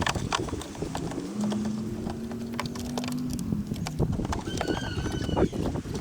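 Irregular clicks and knocks of hands working on car tail-light and trim parts. A low steady hum runs for about two seconds in the middle, and a short high squeak comes near the end.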